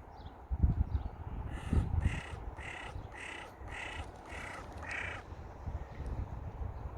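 A crow cawing: a run of about seven harsh caws, roughly two a second, starting about a second and a half in and stopping about five seconds in. Wind buffets the microphone with low rumbles.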